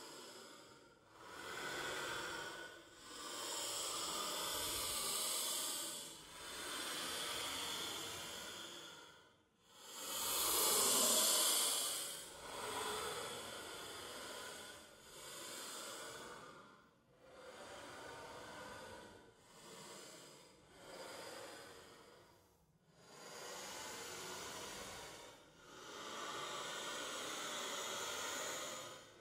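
Ghostly crying sound effect made of breathy, hissing sobs and sighs. They come as a run of swells one after another, each a second or two long with short breaks between, and the loudest comes about ten seconds in.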